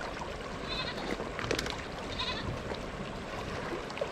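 Two short, quavering animal calls, about a second in and again near the middle, over a steady rush of flowing water.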